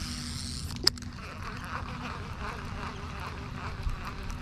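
Baitcasting reel: the spool whirring down at the end of a cast, then a sharp click just under a second in as the reel is engaged, followed by the rhythmic whir of the handle being cranked to retrieve the lure, about four pulses a second.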